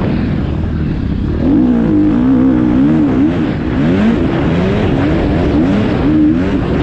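Motocross dirt bike engine heard from on board, revving hard under throttle with its pitch repeatedly climbing and dropping as the rider works the throttle and gears. It gets louder about a second and a half in.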